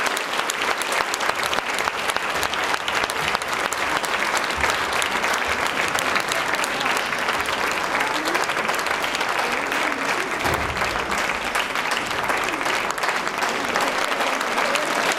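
Audience applauding: a steady, dense stream of hand claps.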